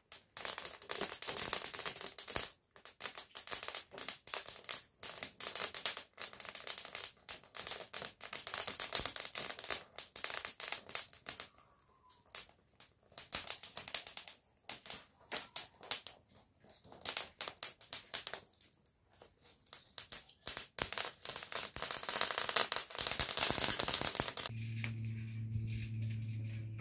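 Dry pine twigs and needles crackling and popping as they catch fire under logs in a wood-burning stove, in irregular flurries with short lulls. Near the end the crackling thins out and a steady low tone comes in.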